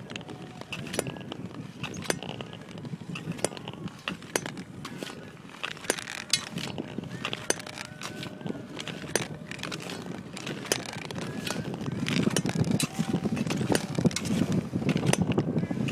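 Speed skate blades on the ice: an irregular run of sharp clicks and scrapes as skaters stroke past, over a low rumble that grows louder about twelve seconds in.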